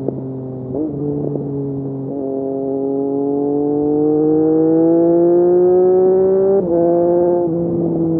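Triumph Street Triple RS 765 cc inline-three engine through an SC Project S1 slip-on exhaust, under way. Its pitch climbs steadily for about four seconds as the bike accelerates, then drops sharply at an upshift about six and a half seconds in.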